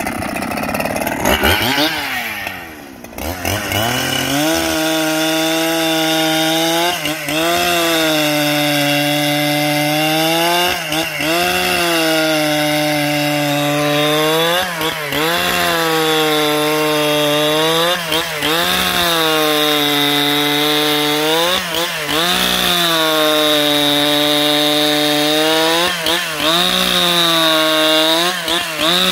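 Husqvarna 395XP two-stroke chainsaw, loud, ripping a log lengthwise at full throttle after a few seconds of uneven revving at the start. The engine note stays steady but sags briefly in pitch every three to four seconds as the bar takes load, then climbs back.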